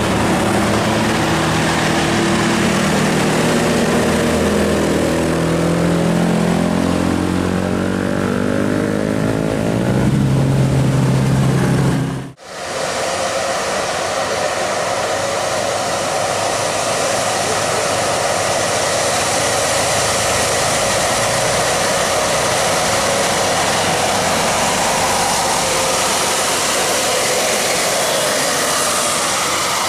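Bus engine running and accelerating, its pitch climbing over several seconds. After an abrupt cut about twelve seconds in, a steady engine and road drone follows.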